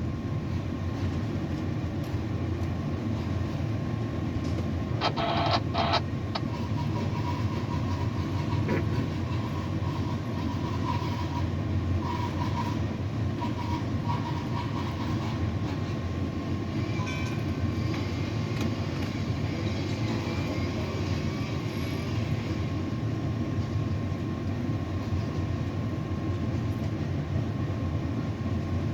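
Tower crane machinery running with a steady low rumble and a faint intermittent whine, with a few short clicks about five seconds in.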